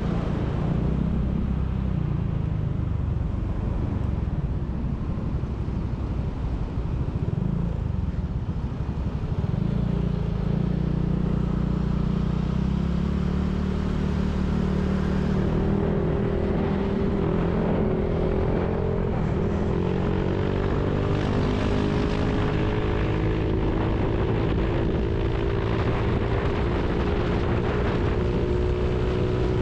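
Honda Click 150 scooter's single-cylinder engine running on the move, its note rising steadily from about halfway through as the scooter accelerates to highway speed.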